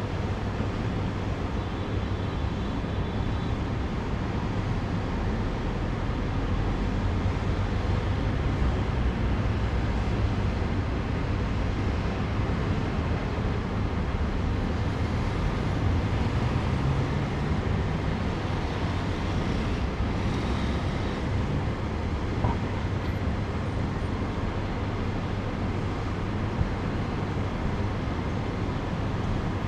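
Road traffic: cars and pickups driving past over a steady low rumble, with one engine note rising as a vehicle accelerates about halfway through.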